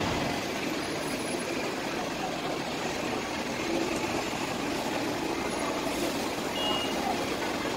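Steady street traffic noise with the engine of a double-decker bus running as it drives slowly past close by.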